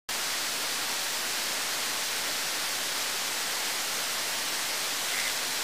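Creek water rushing in a steady, even hiss.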